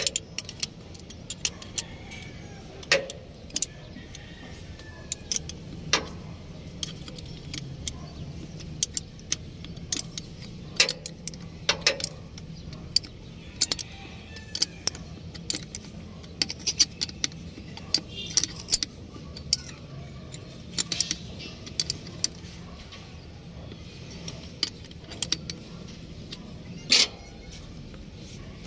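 Irregular sharp metallic clicks and clinks of hand tools on metal as the turbocharger hose and its hose clamp are refitted on a backhoe engine. A steady low hum runs underneath.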